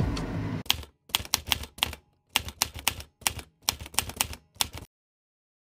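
Typewriter sound effect: an uneven run of sharp key strikes lasting about four seconds, starting just after background music cuts off in the first second.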